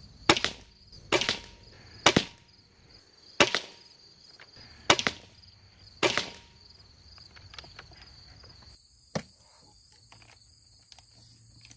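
Six shots from an Air Venturi Avenger PCP air rifle firing 21-grain H&N slugs, a second or so apart. Each is a sharp crack followed a fraction of a second later by a softer knock. Crickets chirp steadily behind them, and near the end there are a few light clicks.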